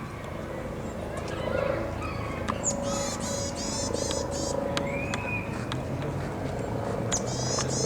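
Varied tit singing: a quick run of high repeated notes about three seconds in and another near the end, with a single lower arched note between them, over a steady low background hum.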